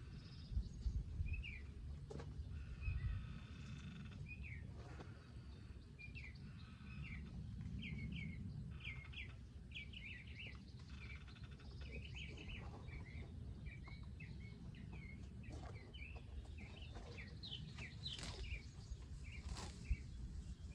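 Birds chirping: a long series of short, high chirps, coming thick and fast through the middle and later part, over a steady low rumble.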